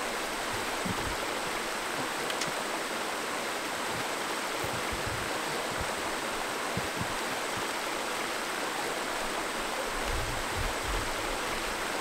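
Steady rushing of a flowing creek, an even water noise, with a few faint low bumps near the end.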